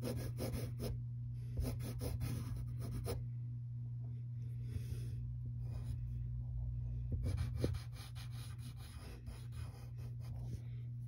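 Graphite pencil scratching on paper in runs of quick short strokes with pauses between, over a steady low hum.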